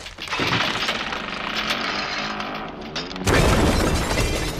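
Cartoon sound effects of ice: a rapid crackling for about three seconds, then a sudden loud, deep crash as the frozen figure shatters into pieces.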